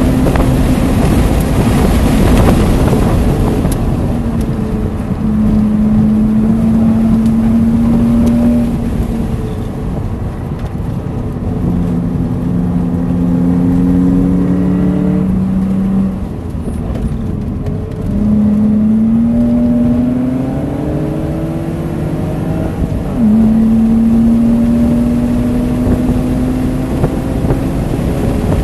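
BMW Z3's engine running hard on a fast straight with heavy wind and road noise, then easing off and holding a lower steady note through a slow corner. From a little past the middle it pulls hard again with a rising note, steps down once in pitch at an upshift, and climbs again.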